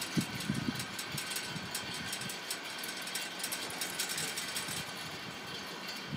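Gusty wind buffeting the microphone, with a steady rush and light, rapid ticking throughout.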